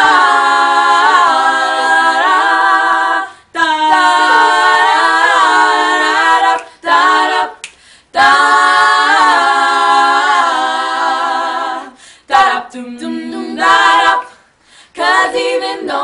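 A group of girls singing a cappella in harmony, holding long notes in phrases a few seconds long with short breaks between.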